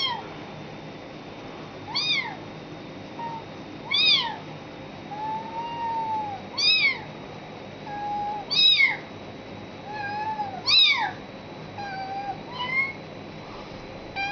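High-pitched kitten-like mews made by a person imitating a kitten: a louder call that rises and falls about every two seconds, with softer, flatter mews between.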